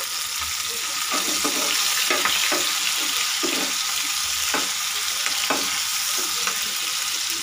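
Chopped capsicum, green chillies, garlic and tomato sizzling in hot oil in a non-stick frying pan, with a spatula stirring and scraping the pan about once a second.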